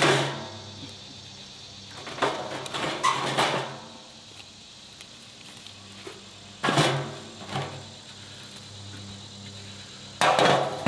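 Firewood logs being stacked into a metal smokeless fire pit: short knocks and clatters of wood against wood and the stove's metal body, in several separate bursts, the loudest near the start and near the end.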